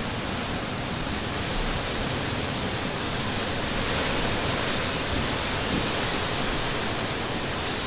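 Strong storm wind gusting across the microphone, a steady rushing noise with heavy low buffeting, from the gust front of an approaching line of thunderstorms.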